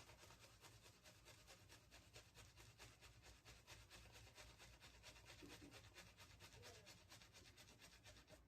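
Synthetic shaving brush whipping shaving-soap lather: faint, rapid wet squishing and crackling strokes, several a second, that stop abruptly near the end.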